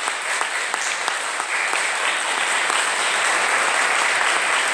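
Congregation applauding, the clapping swelling louder about a second and a half in.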